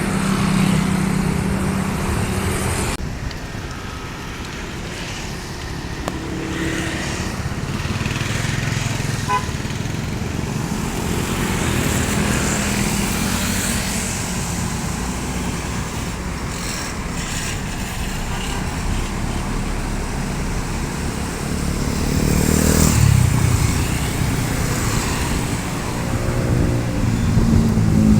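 Roadside traffic: motor vehicles passing with a steady engine and tyre hum. One passes louder about 23 seconds in, and the traffic gets louder again near the end.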